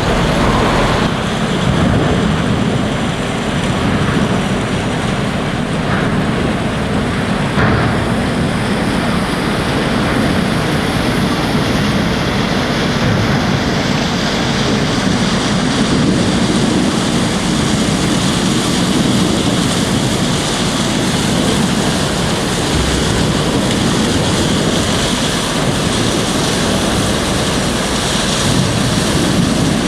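Wood chipper running steadily under load with a dense, even mechanical noise, and a couple of faint knocks a few seconds in.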